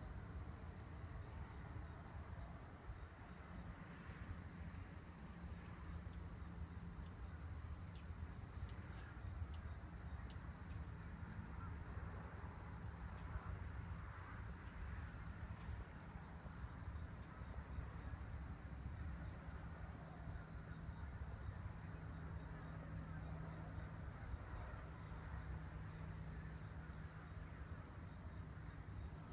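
Insects trilling in one unbroken high, steady tone, with short, higher chirps every second or so over a low rumble.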